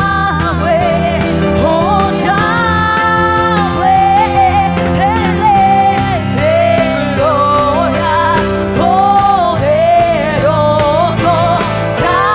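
A woman singing a worship song into a microphone, holding long notes with vibrato, over amplified instrumental accompaniment with a steady beat.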